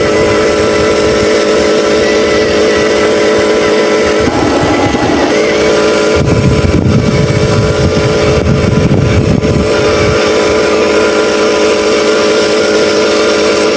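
Simulated diesel truck engine sound from the RC Scania 770S (Huina 1501) sound module, running steadily with a rougher, deeper stretch in the middle.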